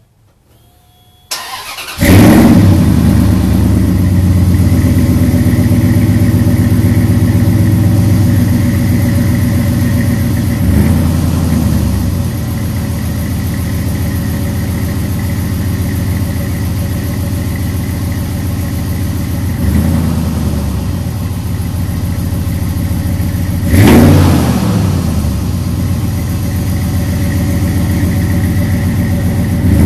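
A 2004 Dodge Ram's 4.7-litre V8, fitted with headers and a Gibson true dual exhaust, cranks briefly and starts about two seconds in. It then idles through the exhaust, with short throttle blips around the middle and a stronger blip near the end.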